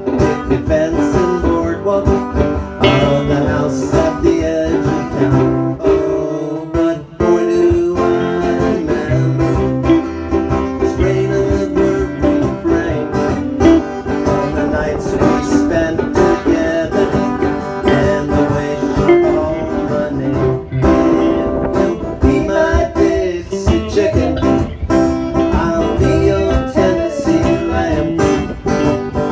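Live band of acoustic guitar, electric guitar and violin playing a bluesy country-rock song, with a short drop in the playing about six seconds in.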